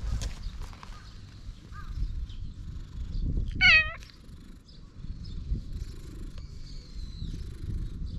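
Weakened stray orange tabby cat giving one short meow a little before the halfway point, over a continuous low rumble.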